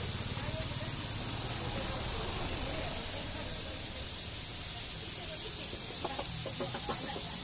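Hot oil sizzling and bubbling steadily as a large pan of flour-coated chicken pieces deep-fries.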